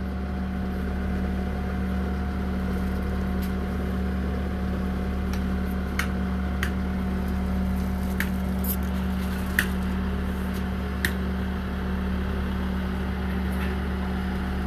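Concrete mixer truck's diesel engine running steadily with a constant low drone. A handful of short sharp clicks and taps, spaced out through the middle, come from hand tools working the wet concrete.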